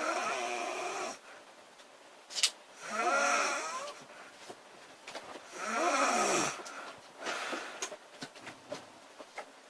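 A woman snoring loudly: three long, pitched snores about every two and a half to three seconds, each lasting about a second, with fainter breathing sounds between. A single sharp click comes just before the second snore.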